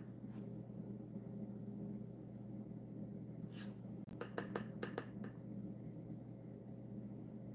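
Light sharp clicks of a thin dye spoon tapping against plastic dye jars and the wire rack: one, then a quick run of about six between four and five and a half seconds in, over a low steady hum.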